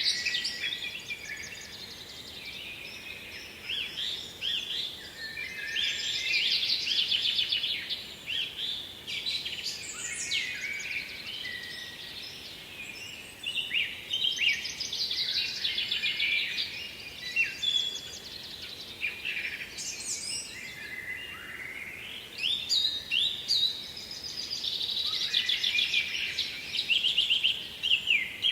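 Songbirds singing, several at once: overlapping high-pitched phrases of quick trills and chirps, one after another with hardly a break.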